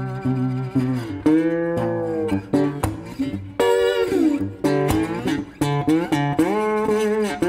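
Background music: a plucked guitar instrumental, with several notes bending and sliding in pitch.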